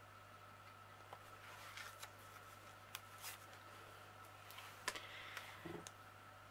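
Quiet room tone with a steady low hum, broken by a few faint clicks and paper rustles from a notebook and parcel being handled.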